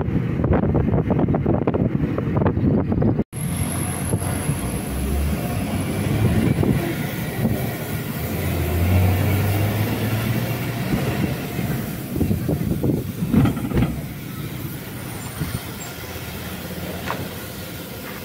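Road and traffic noise from a moving car, dense and rumbling at first and changing abruptly a few seconds in. Later a garbage truck's engine runs close by with a steady hum, and a few knocks come about two thirds of the way through.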